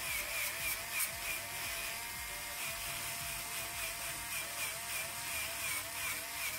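Handheld electric nail drill whirring steadily as it files down acrylic nails. Its pitch wavers in a regular rhythm about three times a second.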